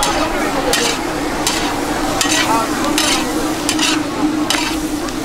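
A metal spatula stirs and scrapes cassava (mogo) chips with onion and capsicum around a large iron wok as they stir-fry in sizzling oil. There is a scrape about every three-quarters of a second over steady sizzling and a low hum.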